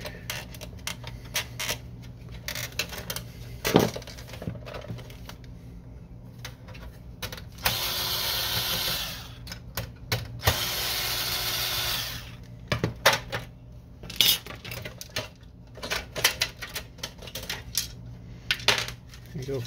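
A cordless drill-driver runs in two short bursts of about a second and a half each, backing screws out of the inkjet printer's frame. Sharp clicks and knocks of plastic printer parts being unclipped and handled come before, between and after.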